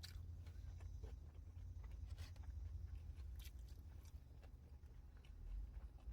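Faint close-up chewing and mouth sounds of a person eating a burger: scattered small clicks and smacks over a steady low rumble.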